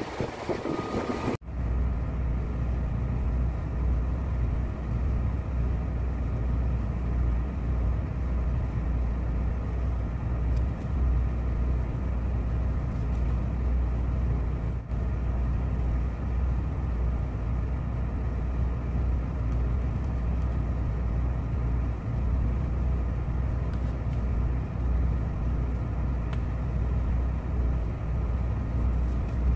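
Wind buffeting the microphone for about the first second and a half, then a sudden cut to the steady low drone of a tugboat's running engine-room machinery, heard from inside the vessel.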